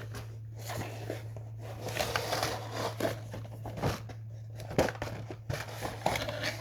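Cardboard box and plastic packaging rustling and crinkling as a boxed toy set is worked out of its carton, with scattered knocks and clicks.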